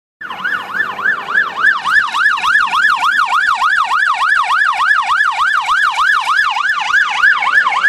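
Police car siren on its fast yelp setting, sweeping up and down about four times a second, heard from inside the car it is chasing.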